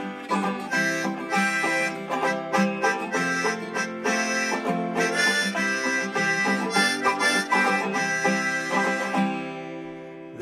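Instrumental break of an acoustic folk song: picked banjo and guitar playing together, dying down over the last couple of seconds.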